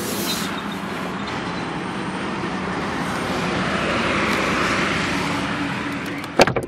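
Steady road-traffic noise with a hum, swelling as a vehicle goes by about four seconds in; near the end a quick cluster of sharp knocks is the loudest sound.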